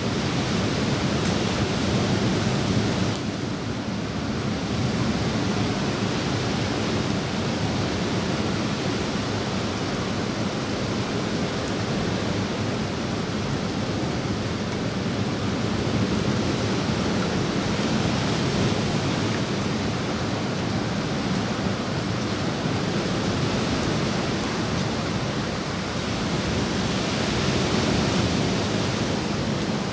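Steady rain falling onto a swimming pool and the foliage around it, a continuous even hiss.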